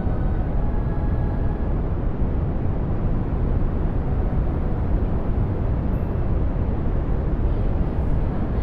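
Synthesized brown noise: a steady deep rushing hiss with most of its energy in the low end, slowly shifting in shape. Faint tonal traces sit under it in the first second and a half, and a faint brief high sound comes about six seconds in.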